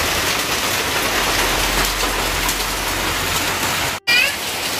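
Heavy rain falling steadily, loudly drumming on the low roof close overhead. It drops out for an instant about four seconds in.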